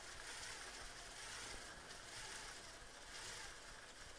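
Faint whir of the Mould King crane model's small electric motors raising the boom. They are working under heavy load because the raising mechanism binds.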